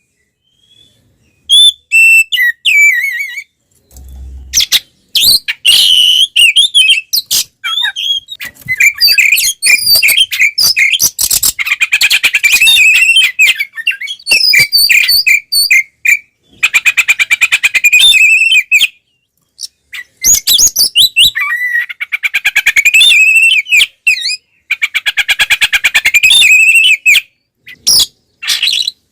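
Oriental magpie-robin singing loudly in long, fast, varied whistled phrases broken by rapid rattling trills, with brief pauses near the start and about two-thirds through. This is the male's full, aggressive fighting song.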